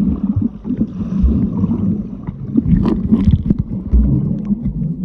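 Muffled underwater sound picked up by a camera under the sea surface: water churning and bubbling as a snorkeller swims past, with irregular dull knocks.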